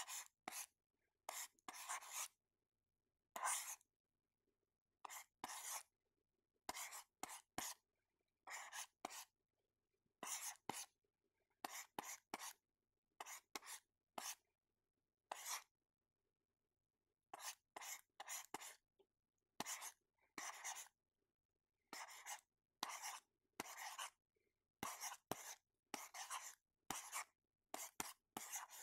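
Writing on paper: a string of short scratchy strokes, each well under a second, coming irregularly with brief silences between them and a longer pause about halfway through.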